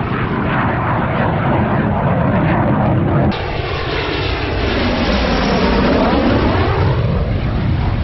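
Dassault Mirage F1 jet on low final approach, its single Atar turbojet loud and steady. About three seconds in the sound changes abruptly, then swells with a sweeping pitch that falls and rises again as the jet passes close.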